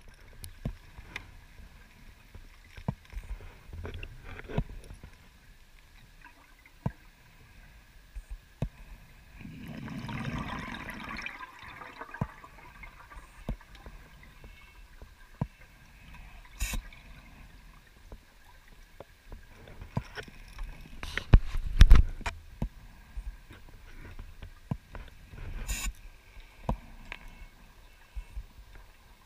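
Underwater sound picked up through a camera housing during a rebreather dive: scattered sharp clicks and knocks, a couple of seconds of gurgling bubbles about ten seconds in, and a louder knock a little past twenty seconds.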